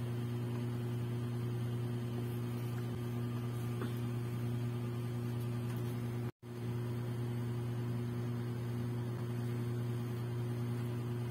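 Steady electrical mains hum, a low drone with higher overtones over faint hiss. It drops out to silence for an instant a little past six seconds in.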